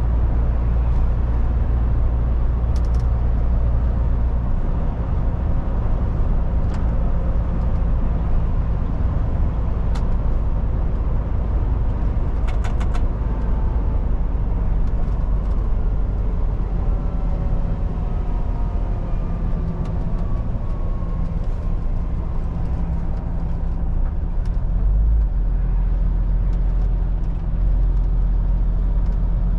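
MAN TGX 18.440 truck driving: a steady low diesel engine drone with road noise. The engine note shifts about four seconds in and again near the end.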